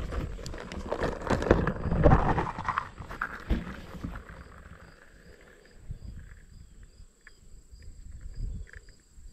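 Rustling and knocking as a plastic cartridge box is handled and opened, loudest in the first few seconds, then faint scattered clicks as rifle cartridges are picked out of it.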